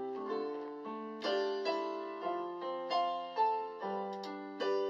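Slow piano music played on an electronic keyboard: a melody of single notes, each struck and fading, over held chords.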